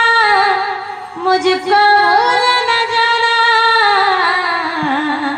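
A woman singing a slow, drawn-out melodic line with ornamented held notes. It breaks briefly about a second in, and the pitch sinks gradually near the end.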